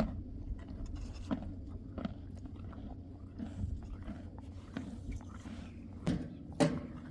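Donkey crunching and chewing raw carrot pieces, with irregular crisp crunches and two louder crunches near the end.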